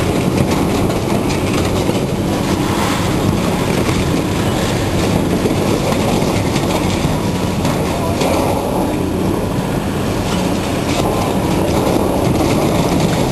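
Heavy scrapyard demolition machine running under load while its jaws tear and crush the metal body of an old box truck. A steady engine drone sits under dense crunching and creaking metal, with a few brief squeals of metal about two thirds of the way through.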